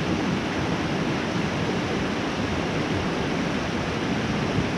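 Steady rush of water from a small mountain trout stream flowing over rocks.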